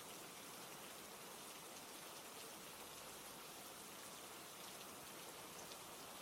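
Faint, steady rainfall, with a soft patter of scattered drops.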